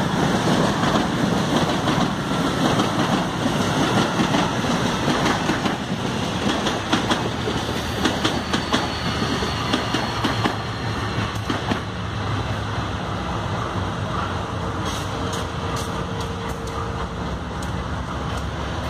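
A CPTM series 8500 electric train passes close by, its wheels clicking over the rail joints. Then MRS diesel-electric freight locomotives pass with their engines running in a steady low drone, and a few sharp clicks come late on.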